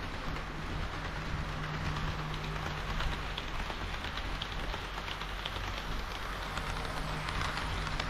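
HO-scale model diesel railcars (KiHa 40 and KiHa 58 series) rolling along the track close by: a steady clattering rumble of wheels on rail with faint ticks and a low steady hum.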